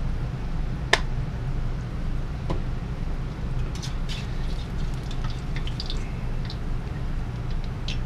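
Biscuit-dough donuts deep-frying in hot oil in a steel wok, crackling and bubbling, with a sharp metal clink about a second in as a slotted steel spatula works against the wok, turning the pieces and lifting them out. A steady low hum sits underneath.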